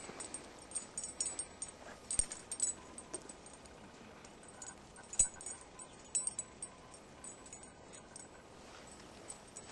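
A tracking dog and its handler moving through dry brush: footsteps and the crackle and rustle of twigs and leaves, with light metallic jingles mixed in. Two sharper snaps stand out, about two and five seconds in.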